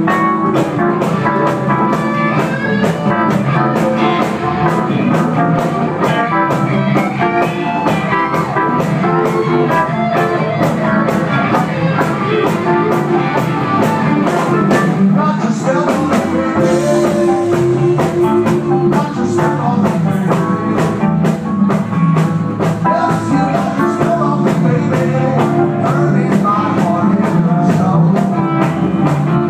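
Live rock band playing loudly and steadily: electric guitar, bass guitar, keyboard and drum kit.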